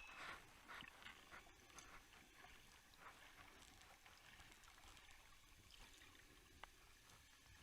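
Near silence: a faint hiss of water with a few soft clicks.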